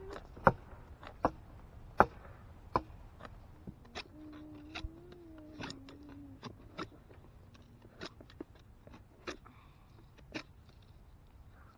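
Knife blade shaving bark off a green wooden stick: a run of sharp, irregular scrapes and clicks about every half second to a second, loudest in the first couple of seconds.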